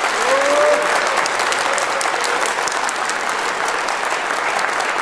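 Audience applauding steadily, a dense patter of many hands clapping, with a voice briefly calling out during the first couple of seconds.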